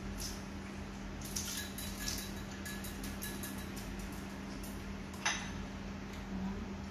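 Chopsticks and spoons clicking against ceramic rice bowls and plates, scattered light clinks with one brief ringing clink about a second and a half in and a sharper click about five seconds in. A steady low hum runs underneath.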